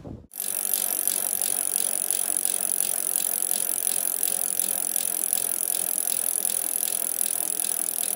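A steady rapid ticking and rattle over a constant hiss, starting abruptly just after the cut and running on evenly.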